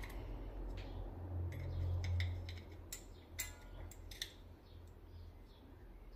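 Small metal carburetor parts clicking and clinking as they are handled and fitted, about eight separate sharp ticks spread over several seconds, over a low hum that swells about two seconds in.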